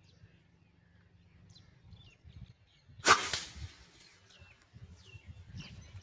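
A slingshot shot: one sharp snap of the released bands about halfway through. Small birds give short chirps before and after it.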